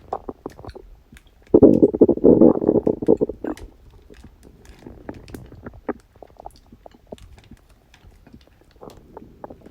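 Human stomach growling with digestive gurgling. About a second and a half in comes a loud bubbling rumble lasting some two seconds; small pops and clicks come before and after it.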